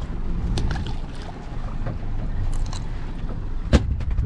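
Steady wind rumble on the microphone aboard a small open fishing boat at sea, with a few light clicks and one sharp knock near the end.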